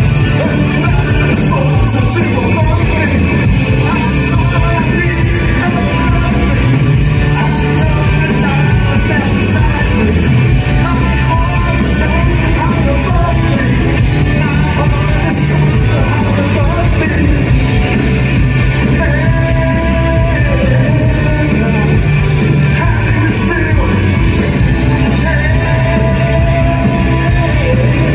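A post-punk rock band playing live, with electric guitars, bass guitar and drums, and a male singer singing and shouting into the microphone.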